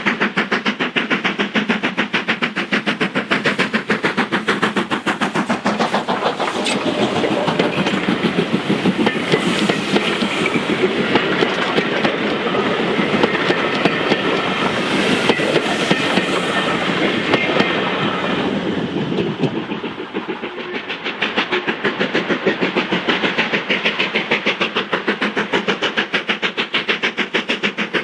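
LMS Black Five two-cylinder 4-6-0 steam locomotive working a passenger train, its exhaust beating in a rapid, even rhythm. It grows louder and noisier for about ten seconds in the middle, then eases back to the steady beat.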